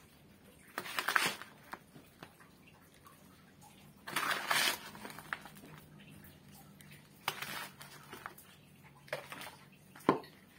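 Potting soil being scooped, scraped and pressed into a plastic plant pot by hand and with a small metal trowel: about five short bursts of scraping and crumbling, over a faint steady low hum.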